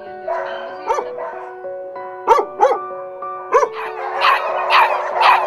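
Dogs barking in kennel pens over background music of held, sustained notes. Single barks come at intervals, then about four seconds in the barking turns into a steady run of about two barks a second.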